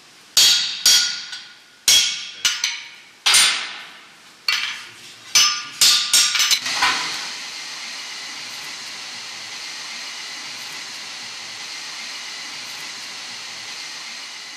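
Hammer blows on a hand-held punch driven into a red-hot square iron bar over the anvil: about a dozen ringing strikes, the last few in quick succession about six seconds in. Then a steady hiss from the forge fire takes over.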